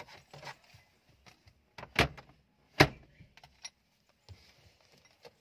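Two sharp knocks less than a second apart, with light rustling and small clicks, from a feather duster being worked over a car's plastic dashboard and glove box.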